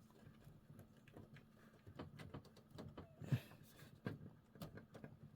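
Faint scattered clicks and taps of a front-panel USB 2.0 cable and its plastic header connector being handled and pushed onto the motherboard's pins, with a sharper click about three and a half seconds in.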